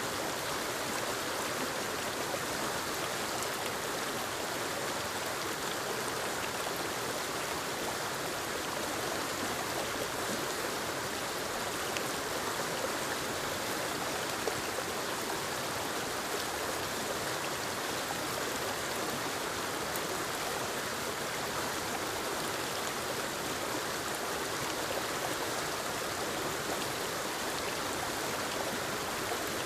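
Forest waterfall and creek: a steady, even rush of falling and flowing water, with faint splashes and drips.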